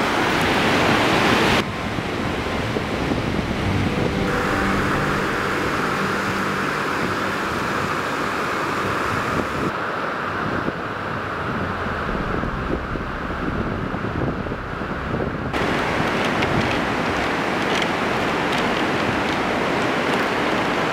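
Fast mountain river rushing below a suspension footbridge, a steady loud roar of water with wind noise on the microphone. The sound changes abruptly a few times, and a faint low hum sits underneath for a few seconds in the middle.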